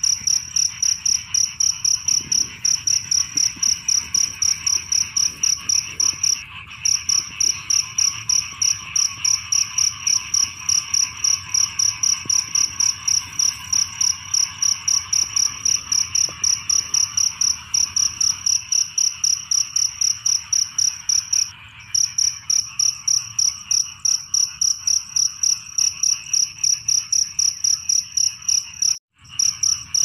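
Field cricket chirping in a fast, even rhythm, about four high chirps a second, over a continuous chorus of frogs. The sound cuts out briefly three times.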